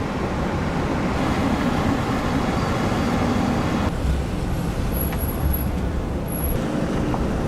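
Steady rumble and hiss of a vehicle driving on the road.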